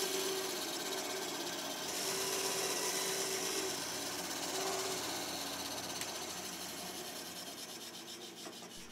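Small Ryobi benchtop bandsaw running and cutting through tiger maple, a steady machine whir with a faint hum. It then runs free and fades gradually toward the end.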